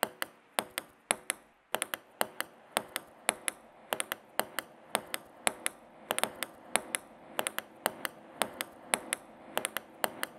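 Sound table tennis played in blackout goggles: the ball clicking and knocking against bats and the table in quick, irregular hits, several a second, with a short lull about a second and a half in.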